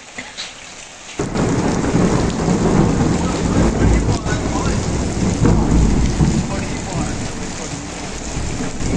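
Heavy rain pouring onto concrete ground. It comes in loud and suddenly about a second in, with a deep low rumble under the hiss.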